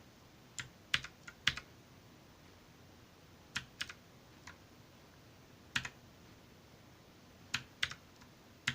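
Redragon K551 Vara mechanical keyboard keys pressed one at a time, not typed: about ten separate sharp clicks in small groups, with pauses of one to two seconds between them.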